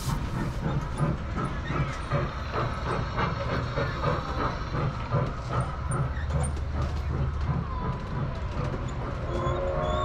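Small trackless kiddie train on rubber tyres driving past, with a rhythmic chugging of about three beats a second.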